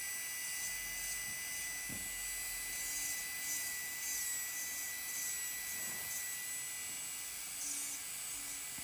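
Electric nail drill (e-file) running at a steady speed with a high whine, its flame-shaped bit rubbing along the cuticle and nail folds.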